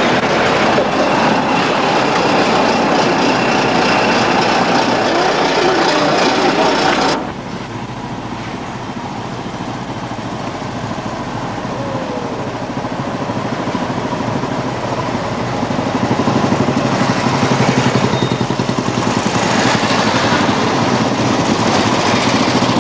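A truck's engine running close by, cut off abruptly about seven seconds in. Then a group of motorcycles approaches along the road, their engines growing steadily louder toward the end.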